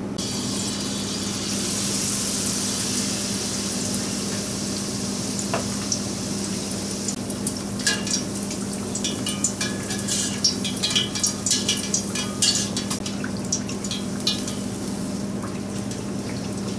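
Battered sweetfish frying in deep oil in a cast-iron pot. A hissing sizzle starts sharply as the pieces go in, and from about eight seconds in it turns to bubbling with frequent sharp crackles and pops. A steady low hum runs underneath.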